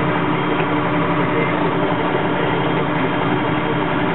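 Tractor engine running steadily under way, heard from inside the cab.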